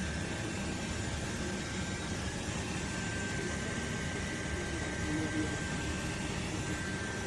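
Dreame L10s Ultra robot vacuum running: a steady fan whir with a thin, steady high whine.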